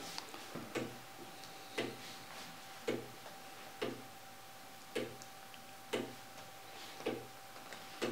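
Handcrafted Clayton Boyer "Swingtime" wooden gear clock ticking steadily, about one tick a second.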